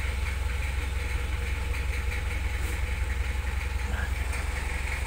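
Mitsubishi Kuda's four-cylinder diesel engine idling steadily, a fast, even low chug heard from the driver's seat.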